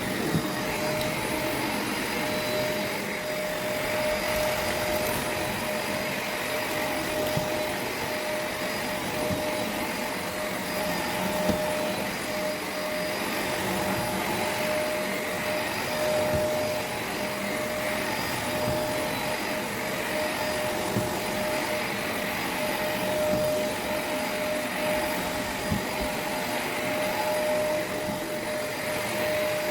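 Shark NV501 upright vacuum running steadily with a constant whine, working over carpet during pre-vacuuming, with a few brief knocks.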